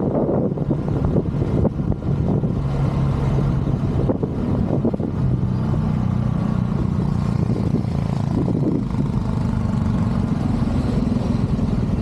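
Motorcycle engine running while riding along a road, with wind and road noise. The engine note steps up in pitch about five seconds in.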